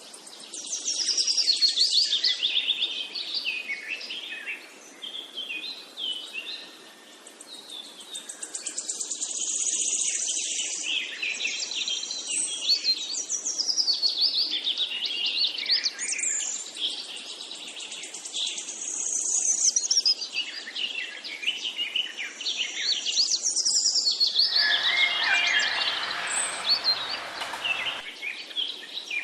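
Several songbirds singing at once: a dense, overlapping chorus of high chirps and rapid trills. A rougher, lower noise joins for about three seconds near the end.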